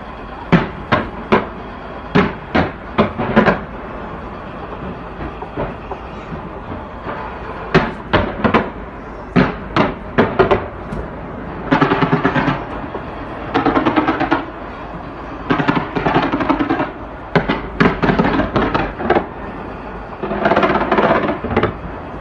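Aerial fireworks exploding: sharp bangs in quick succession, then from about halfway through, repeated bursts of dense rapid crackling, each lasting about a second.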